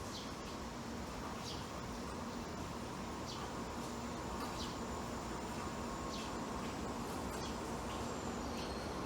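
Steady outdoor background hiss with a faint electrical hum, while a bird gives short falling chirps every second or two.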